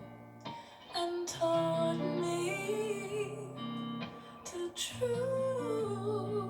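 A recorded song playing: a woman's soft vocal line with long held notes over a gentle instrumental backing.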